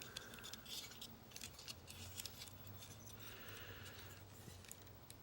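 Faint, scattered clicks and light rattles of a plastic Transformers figure being handled, its parts clicking as they are moved into place during the transformation to robot mode.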